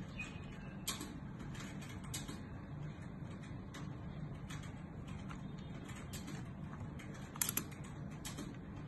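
Scattered small clicks and light rubbing of a lanyard cord and a silicone camera case being handled as the cord is threaded through the case's loop, with a louder cluster of clicks about seven and a half seconds in, over a steady low hum.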